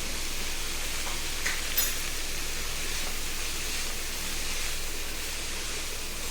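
Chopped cabbage, tomato and onion sizzling in oil in a pan, a steady hiss, with a couple of light clicks about a second and a half in.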